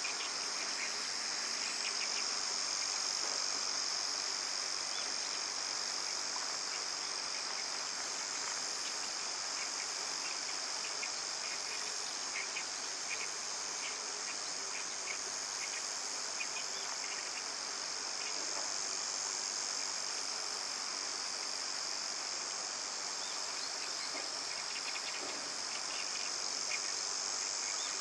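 Chorus of insects, a steady high-pitched shrill that holds level throughout, with faint short chirps scattered through it.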